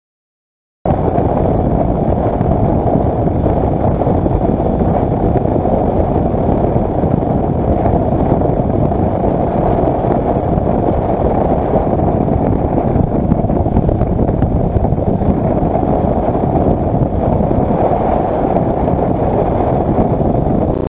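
Kawasaki Versys motorcycle ridden at road speed, heard as steady wind rushing over the camera microphone with the engine and road noise underneath. It starts abruptly about a second in after silence.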